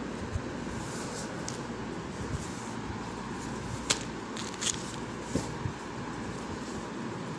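Banana pith sarees being handled and turned over by hand: cloth rustling, with a few short sharp crackles, the loudest about four seconds in, over a steady background hum.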